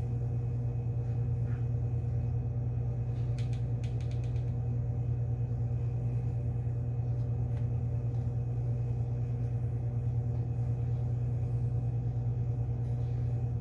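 Steady low hum, even throughout, with a few faint light clicks about three to four seconds in.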